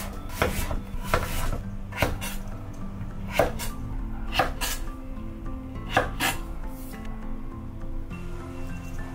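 Chef's knife slicing through kabocha squash and striking a wooden cutting board: about ten irregular knocks, often in quick pairs, which stop about two-thirds of the way through. Background music plays throughout.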